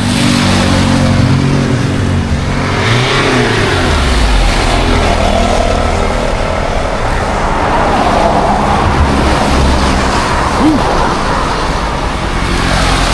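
Steady rush of rain mixed with road traffic noise and a low engine hum, swelling twice as vehicles pass.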